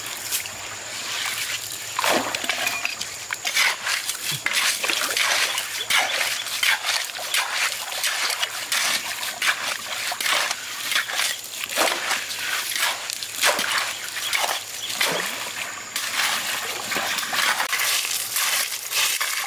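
Wet gravel and pebbles being scooped, scraped and dug by hand and with a digging tool at a stream's edge: irregular crunches and scrapes of stones, with splashes and sloshing of shallow water over the stream's steady flow.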